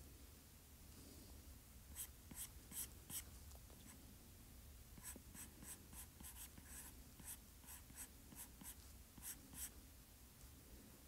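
Faint stylus strokes on a tablet's glass screen: quick sketchy scratches and taps, a few a second in bunches, starting about two seconds in.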